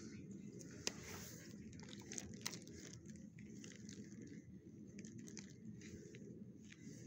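Faint irregular clicks and light taps over a steady low room hum, with the sharpest click about a second in.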